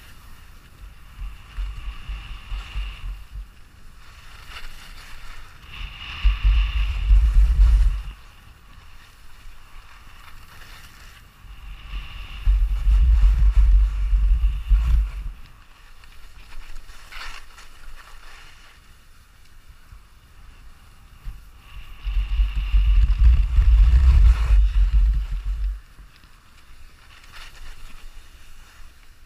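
Wind buffeting an action camera's microphone while skiing, swelling into three loud low rumbles a few seconds long, over a steady hiss of skis sliding on snow.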